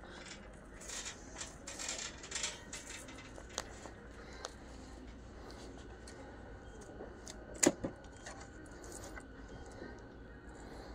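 Quiet shop-floor room tone with a faint steady hum, under light rustling and clicking from a handheld camera being carried and handled. One sharp click comes about two-thirds of the way through.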